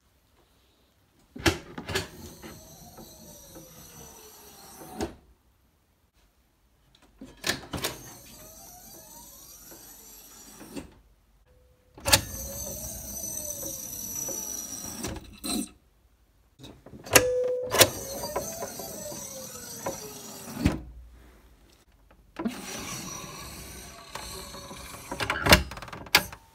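Homemade monitor lift, built from a gas pressure spring and sliding-door rails, running up and down through five separate movements. Each begins with a sharp click, carries on as a steady sliding noise with faint tones that glide up and down, and ends with a knock, with short silences in between.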